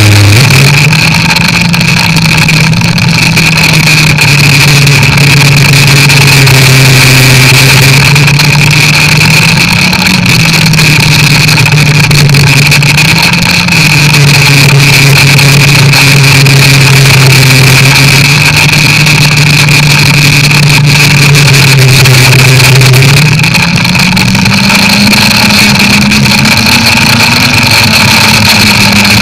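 Snowmobile engine running loudly at a steady cruising speed under a steady high whine. The engine note rises briefly twice, around ten and thirteen seconds in, then climbs and stays higher from about 23 seconds.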